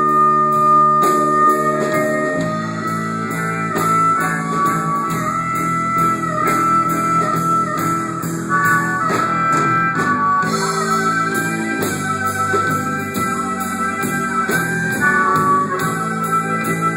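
Live band music with no singing: a lead guitar plays a melody over a steady beat.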